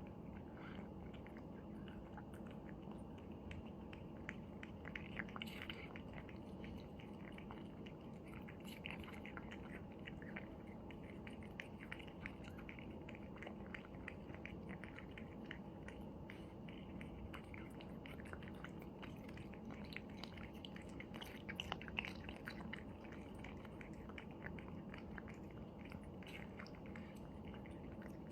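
Cats eating, with many small irregular chewing and crunching clicks over a steady low background hum.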